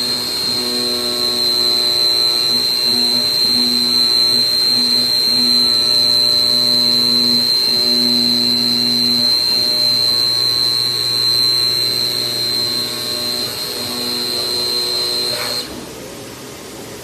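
Digital CNC flatbed cutter running: a steady high whine from the cutting head over a lower motor hum that comes and goes as the machine moves. Near the end the whine and hum cut off suddenly, leaving a steady hiss.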